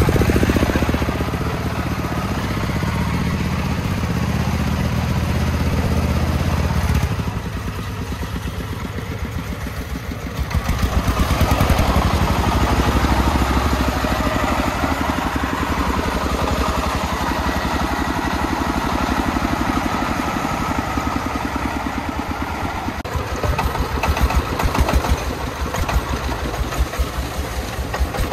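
Single-cylinder diesel engine of a homemade công nông truck running with a fast, even chugging. It drops back about seven seconds in and picks up again, louder, about ten and a half seconds in.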